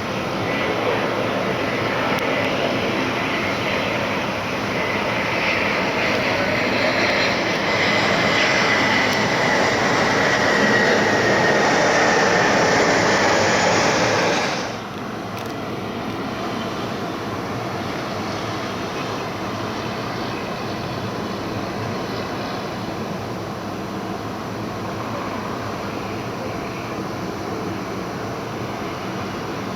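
Airliner on approach passing close by: loud engine noise with a whine that falls slightly in pitch, growing louder, then cut off abruptly about halfway through. A quieter, steady rumble of engine noise follows.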